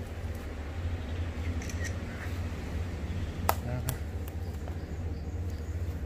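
Outdoor ambience: a steady low rumble, with two sharp clicks a little past halfway.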